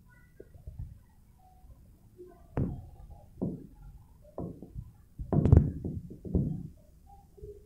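About half a dozen irregular knocks and thumps, beginning a couple of seconds in, the loudest a short cluster a little past halfway.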